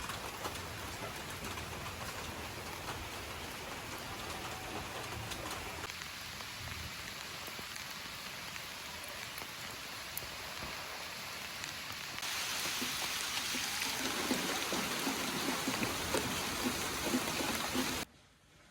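Steady hiss of falling rain, which steps up louder about two-thirds of the way through and cuts off abruptly just before the end.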